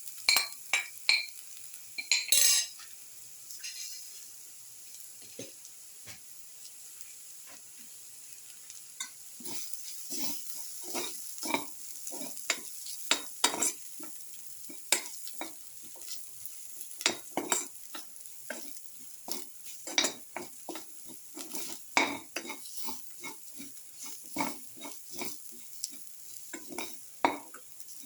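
A spoon stirring and scraping through shallots, garlic, ginger and crushed black pepper sautéing in oil in a pan, with irregular knocks against the pan over a steady sizzle. The stirring strokes are sparse for the first stretch and come thick and fast from about nine seconds in.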